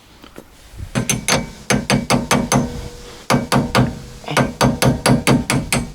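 Hand ratchet wrench clicking as a bolt is tightened. The clicks start about a second in and come about five a second in runs, with two short pauses between strokes.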